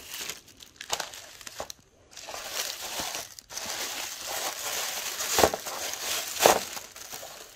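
Iridescent cellophane bag and white tissue paper crinkling as a package is handled and unwrapped: irregular rustling, with a brief gap about two seconds in and two louder crinkles near the end.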